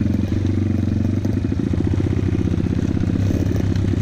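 Motorcycle engine running steadily, with a rapid low pulsing.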